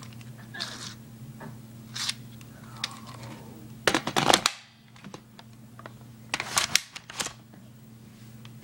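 Sharp clicks and rattling from an airsoft gun being handled right at the camera taped onto it, loudest in two quick bursts about four and six and a half seconds in, over a steady low hum.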